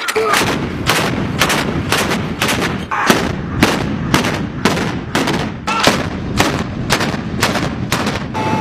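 A battery of towed, clip-fed anti-aircraft autocannons firing, sharp shots following one another about two to three a second from several guns.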